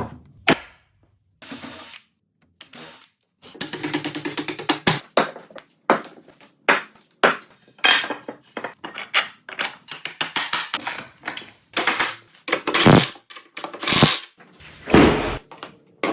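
Woodworking tools in short, choppy segments: runs of rapid clicking and short noisy strokes, broken by brief silent gaps, with three louder noisy bursts in the last few seconds.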